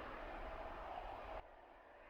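Faint, steady jet noise from a departing Airbus A350's Rolls-Royce Trent XWB engines, with a faint whine, cutting off abruptly about one and a half seconds in and leaving only faint hiss.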